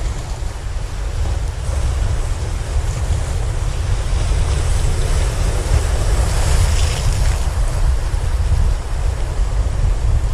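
Wind on the microphone, a loud low rumble, over the steady wash of sea surf.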